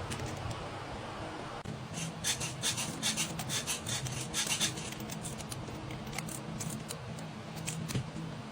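Hand-tool work on an engine: a run of quick scraping, rasping strokes for a few seconds, then a few scattered clicks.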